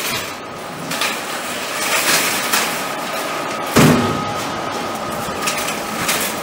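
Shopping cart clattering through a shop's entrance, with a heavy thump about four seconds in as the glass entrance door is pushed open. A faint steady tone runs underneath.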